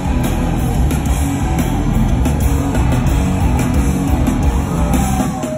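Rock band playing live at full volume, electric guitars and drums driving hard and steady, heard from the crowd through a phone microphone.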